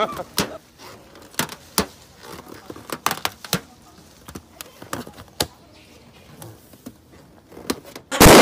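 A rubber balloon being bitten and handled by a rhesus macaque gives scattered sharp squeaks and ticks, a few a second and uneven. Near the end the balloon bursts with one loud pop.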